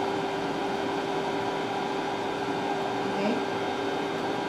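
CTL69 body-contouring machine running with a steady whirring hum and one constant low tone, its pumps and fans working through the treatment.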